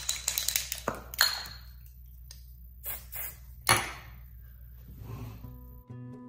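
Makeup being handled at a vanity, a spray foundation bottle and a brush: scattered clicks and taps, a few short hissy bursts about three seconds in, and a sharper knock just before four seconds. Background music comes in near the end.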